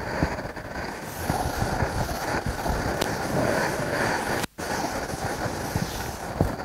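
Chalkboard being wiped with a duster: a continuous scrubbing swish with low thumps and rustling. The sound drops out for a moment about halfway.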